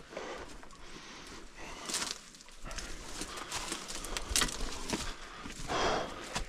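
A person breathing heavily from exertion, with loud breaths about two, four and a half and six seconds in, between scattered footsteps and scrapes.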